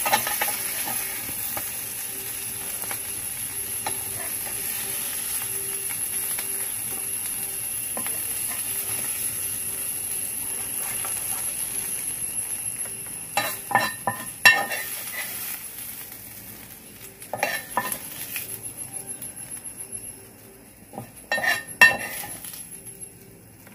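Mackerel sizzling as it fries in coconut oil in a shallow pan, a steady hiss. About halfway through, a metal spatula scrapes and clinks against the pan in a few short bursts as the fried fish are lifted out, and the sizzle dies down.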